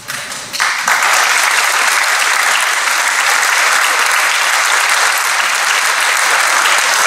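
Audience applauding, starting thinly and swelling within the first second to full, steady applause.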